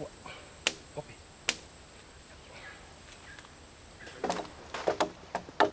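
Hand tools chopping into a wooden log being carved into a canoe: two sharp single knocks early, then a quick run of chopping strokes from about four seconds in. A steady high insect drone runs beneath until the chopping starts.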